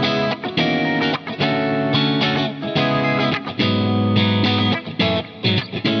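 GrassRoots G-SNAPPER 24/M AS electric guitar played with a clean tone: strummed chords, struck every half second to a second with short gaps, changing chord every second or so.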